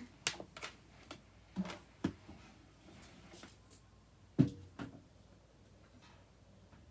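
Scattered light knocks and clicks of household things being handled and set down, the loudest a thump about four and a half seconds in, with faint room tone in between.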